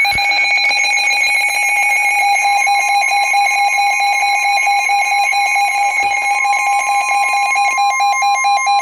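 Emergency Alert System attention tone: a loud, steady, harsh alarm tone with a fast flutter, turning choppier about eight seconds in. It heralds a severe thunderstorm warning.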